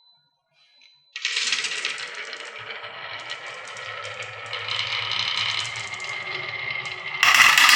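Many marbles clattering and rolling down a wooden HABA marble run. The dense rattle starts suddenly about a second in and gets much louder near the end.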